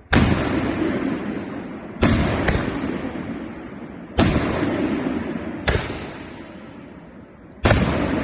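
Aerial firework shells going off: six sharp, loud bangs a second or two apart, each followed by a long rumbling echo that dies away.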